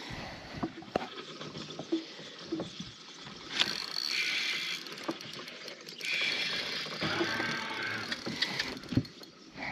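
Spinning fishing reel being cranked in several spells of a second or two, a fine whirring rattle of the reel's gears and rotor. Before that come light clicks and knocks of the rod and reel being handled.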